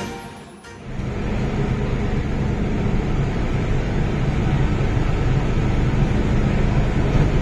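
The tail of a jingle fades out in the first second. It gives way to the steady hum and rumble heard inside an MTR Island Line M-Train car, growing slightly louder over the next few seconds.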